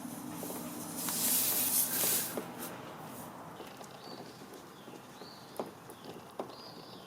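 Air hissing out of a tire puncture for about a second as the reaming tool is pulled from it, followed by quieter rubbing and a few faint clicks as the tire plug is pushed into the hole.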